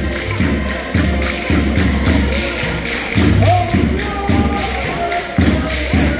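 Portuguese folk music with a steady beat, about two strokes a second, and jingling tambourine-like percussion.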